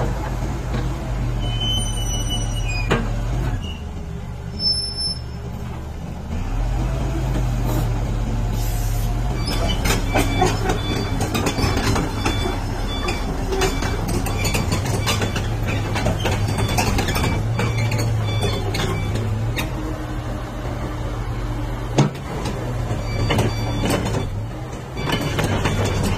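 Komatsu PC70-8 mini excavator's diesel engine running steadily. Its low drone dips for a few seconds near the start and then comes back. Scattered clanks and knocks come from the tracks and arm as the machine moves, with one sharp knock near the end.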